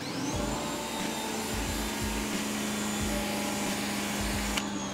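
Ryobi electric pressure washer running as the wand is triggered: a high motor whine that rises quickly at the start and then holds steady, over the hiss of the water jet spraying onto concrete.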